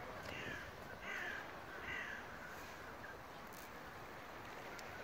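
Canada geese on the water giving three short, harsh honks in quick succession in the first two seconds, then fainter calls.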